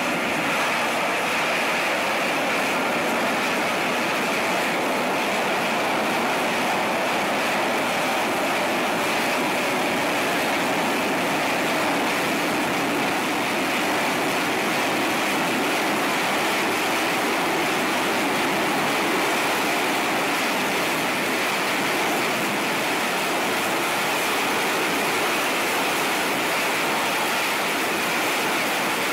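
Steady jet engine roar with a rushing hiss, even in level and unbroken throughout.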